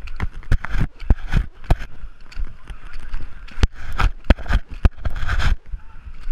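Mud and water sloshing and splashing right against a GoPro's waterproof housing, with many sharp knocks and scrapes on the case as the wearer moves through the mud.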